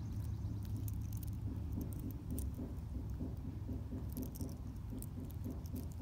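Small irregular clicks and clinks of a stainless steel watch bracelet's links shifting as the watch is turned over in the hand, over a steady low rumble.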